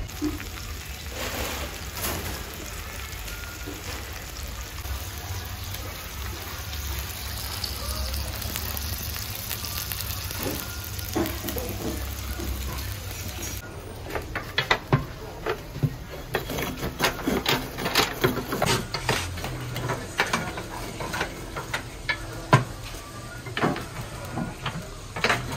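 A steady hiss for about the first half, then a run of sharp clinks and knocks as glazed clay tagines and small metal charcoal braziers are handled and set down.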